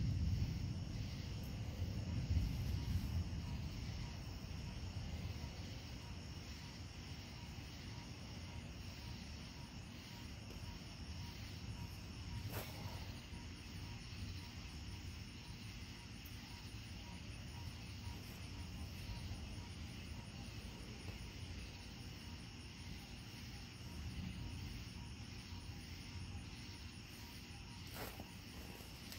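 Rolling thunder dying away over the first few seconds, swelling briefly once before fading. After that, a steady chorus of night insects such as crickets chirring, with a couple of faint clicks.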